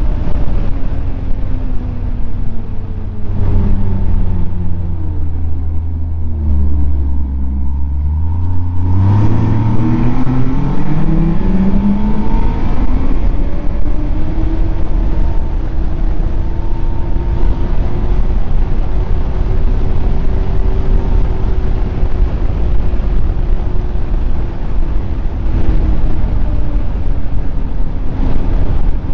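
Snowmobile engine under way: it slows over the first several seconds with its pitch falling, then speeds back up with a rising pitch about a third of the way in, and holds a fairly steady cruising speed for the rest, over a constant low rumble.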